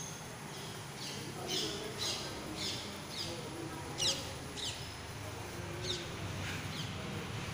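A bird calling a string of short, high chirps that fall in pitch, about two a second with a short gap partway through, over a steady low rumble.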